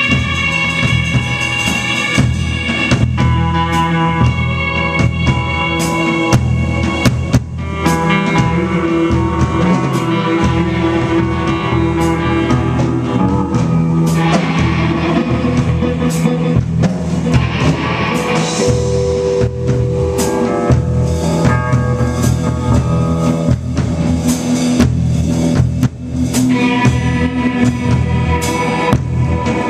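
A rock band playing: drum kit beating steadily under guitar and sustained chords, loud throughout.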